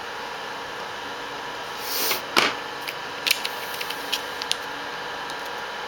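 Hands handling a laptop LCD panel in its lid: a short rustle about two seconds in, then a sharp plastic click and several lighter clicks and taps, over a steady background hiss.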